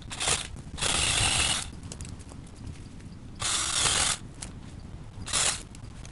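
Cordless DeWalt DCS380 reciprocating saw with a 12-inch Diablo wood blade cutting buckthorn branches in four short bursts, the second and third each about a second long.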